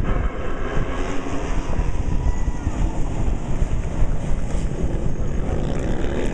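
A bunched field of supermoto racing motorcycles at speed, many engines blending into one continuous drone.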